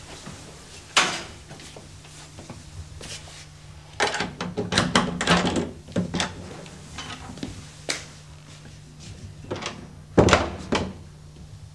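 Interior door with a metal lever handle being worked: a cluster of clicks and knocks from the handle and latch, then the door shutting with a thunk about ten seconds in, the loudest sound. A low steady hum runs underneath.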